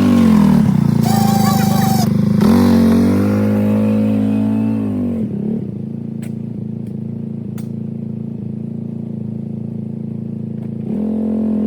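Four-wheeler engine revving up and down, settling to a steady idle about five seconds in, then revving up again near the end. A brief high squeal sounds about a second in.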